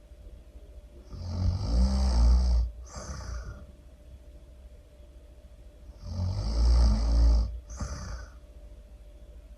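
Loud snoring: two long, low snores about five seconds apart, each followed by a short, softer breath.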